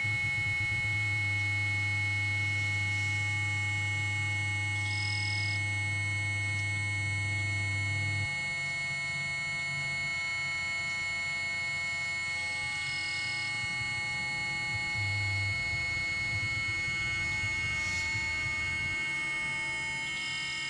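Electronic drone improvisation on battery-powered instruments: many steady held tones layered into a chord. A low bass tone drops out about eight seconds in, and a short high beep repeats roughly every eight seconds.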